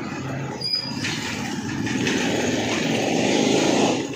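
Street traffic noise: a passing vehicle swells over a few seconds and then cuts off suddenly near the end.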